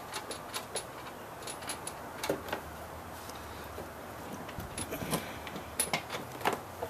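Scattered light clicks and taps of hands and tools on a scooter's plastic body panels, with a few sharp clinks that ring briefly.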